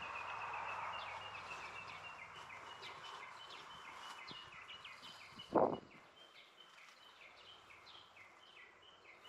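A bird calling over and over: a short, high, falling note repeated steadily about two to three times a second. A brief louder sound breaks in a little past halfway.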